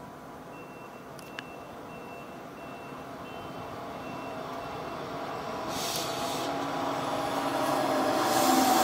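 Electric-hauled double-deck regional push-pull train approaching and rolling into the station, its running noise growing steadily louder as it nears. A faint, evenly repeated high beep sounds through the first half, and bursts of hiss come near the end.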